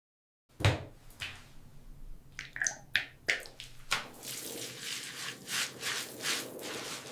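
A series of sharp clicks and taps, irregular at first with a brief chirp-like tone near the middle, then a steadier run of about two or three strikes a second.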